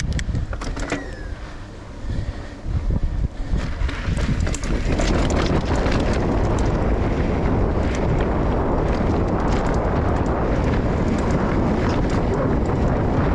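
Mountain bike riding on a dirt trail: wind buffeting the handlebar camera's microphone and tyres rolling over dirt, with clicks and rattles from the bike. It is quieter with scattered clicks for the first few seconds, then a steady rush from about five seconds in.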